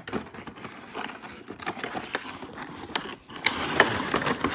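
A toy's packaging box being handled and opened: rustling with irregular sharp clicks and scrapes, growing busier and louder near the end.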